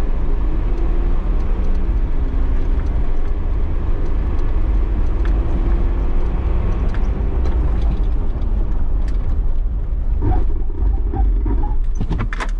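Mercedes G-Class accelerating along a concrete runway: the engine pulls under load over a heavy, steady low rumble of tyres and wind. A few sharp knocks come near the end.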